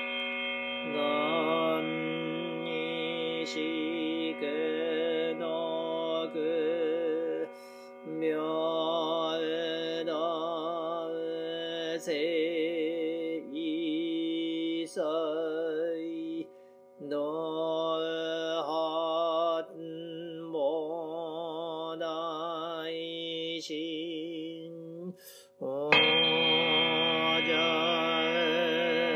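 Buddhist chanting from a Jodo Shinshu morning service: one voice sings long, wavering, drawn-out notes with a strong vibrato, over steady held tones. It breaks off briefly for breath about every eight to nine seconds.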